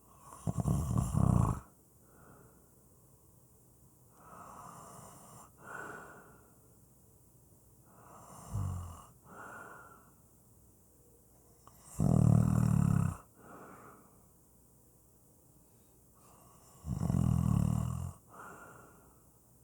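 Slow, steady snoring: three loud snores about a second long each, near the start, about twelve seconds in and about seventeen seconds in, with softer breaths between them.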